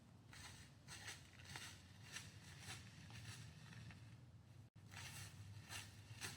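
Deer buck pawing the ground with a front hoof while making a scrape, scratching away leaves and dirt in faint, repeated rasping strokes about two a second.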